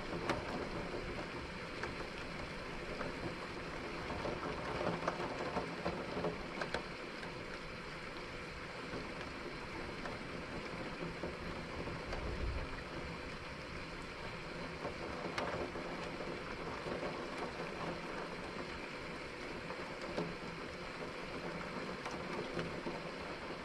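Steady rain falling during a thunderstorm: an even hiss with scattered ticks of drops, and a brief low rumble about halfway through.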